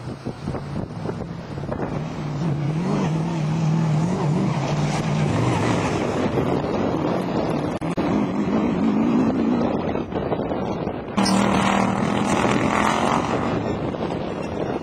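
Off-road racing 4x4 engine revving up and down under load, with wind buffeting the microphone. About eleven seconds in the sound jumps suddenly louder as a nearer engine takes over.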